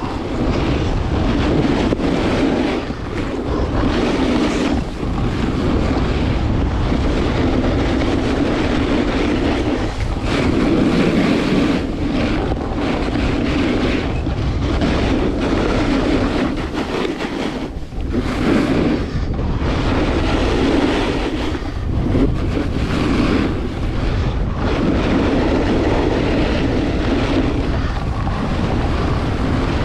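Wind buffeting the microphone of a camera worn by a downhill skier, mixed with the skis hissing and scraping over firm snow. The noise swells and eases repeatedly, with a few brief lulls.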